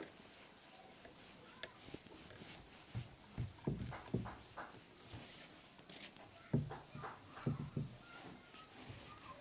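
Duster wiping marker writing off a whiteboard in short rubbing strokes, in two bouts about three seconds in and again about six and a half seconds in.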